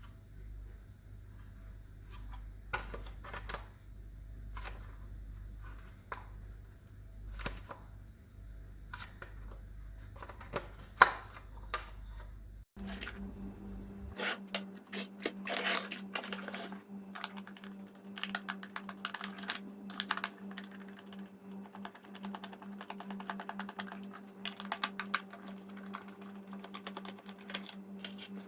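Many small clicks and taps of hard plastic vacuum-cleaner parts being handled, over a steady hum. About halfway through the hum changes abruptly to a higher-pitched one, and the clicking becomes busier; one sharp knock just before the change is the loudest sound.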